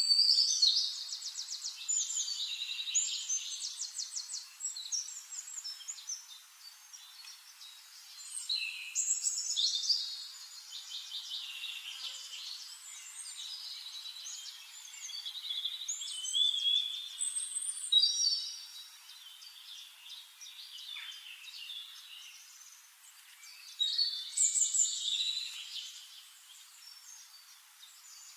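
Forest songbirds singing in repeated bursts of quick, high trilling phrases, a new song starting every few seconds, with fainter chirps in between.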